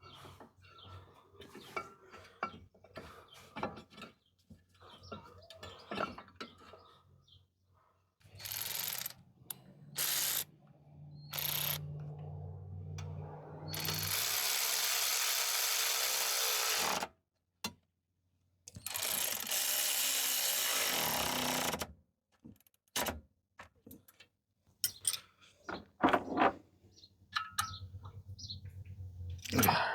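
Tools at work on a Jeep TJ's front brake caliper: scattered ratchet clicks and metal clinks, a power tool run in short bursts, and two steady runs of about three seconds each as the caliper bolts are driven home.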